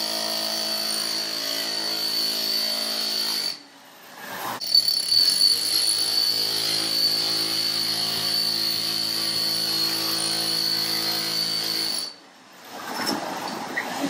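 Hilti electric chipping hammer running under load, chiseling up pebble tile and mortar from a shower floor, with a steady rapid hammering and a high motor whine. It stops briefly about three and a half seconds in, runs again until near the end, then pauses, and there is loose rattling near the end.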